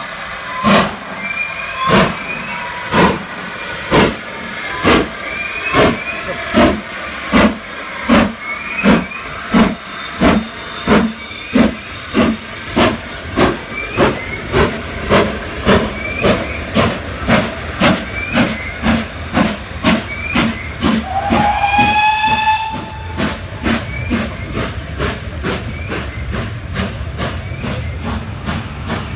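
GWR Castle class 4-6-0 steam locomotive No. 7029 Clun Castle chuffing past under power, its exhaust beats quickening from about one to two a second as it gathers speed, with steam hissing from the cylinder drain cocks. About 21 seconds in its whistle sounds once briefly, rising then falling in pitch. After that the chuffs fade under the rumble of the coaches rolling by.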